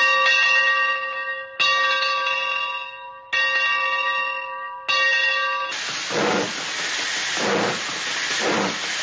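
A bell struck four times, each stroke ringing out and fading, then a loud hissing noise that swells and falls about once a second, like a steam train chugging.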